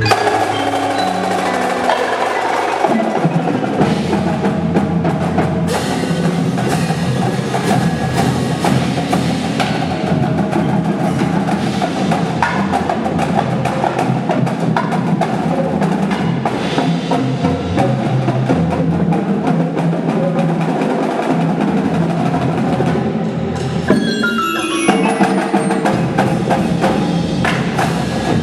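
Winter drumline and front ensemble playing: drums with marimba, glockenspiel and chimes-like mallet percussion. About 24 seconds in, a quick descending run of high bell-like notes is heard over the ensemble.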